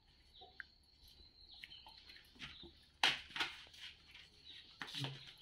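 Scuffing footsteps and rustling, several sharp scuffs from about three seconds in, over a steady high-pitched cricket trill.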